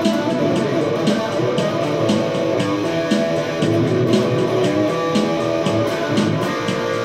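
Electric guitar played through an amplifier in a jam, with notes ringing over a steady pulse about twice a second.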